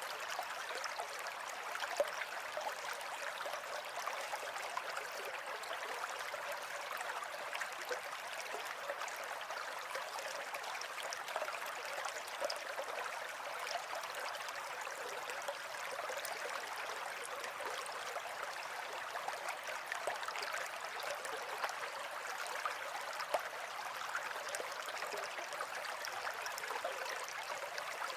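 Steady running water of a stream, babbling evenly with many small splashes and gurgles.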